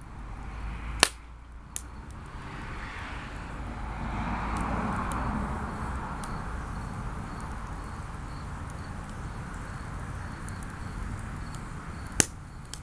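Split logs burning in a steel truck-rim fire pit: a steady rush of flame with sharp crackling pops from the wood, the loudest about a second in and just before the end.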